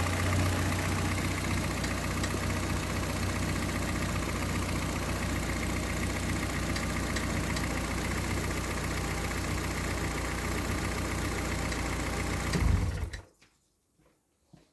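Car engine idling steadily after a start, its alternator charging the battery. About thirteen seconds in, the sound swells briefly and then cuts off abruptly.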